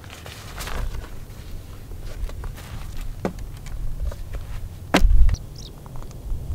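A folding camp chair being assembled and set up: fabric rustling and a few sharp clicks and knocks from its poles, the loudest knock about five seconds in. A low wind rumble on the microphone runs underneath.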